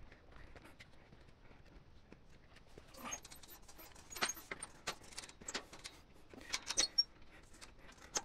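Footsteps climbing rusty iron steps and rock, irregular scuffs and sharp metallic clinks that grow louder from about three seconds in.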